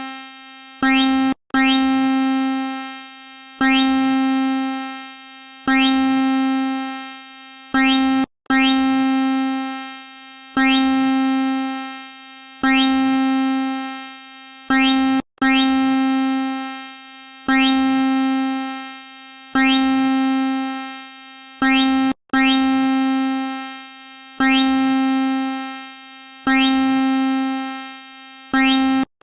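Synthesized emergency-alert alarm tone: one steady buzzy pitch with many overtones, struck about every two seconds. Each tone opens with a quick upward sweep and fades out, and every third tone or so comes right after a short clipped one.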